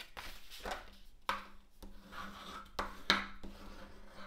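Cardstock being folded and creased with a bone folder and the hand, heard as a series of short paper-rubbing strokes about half a second apart.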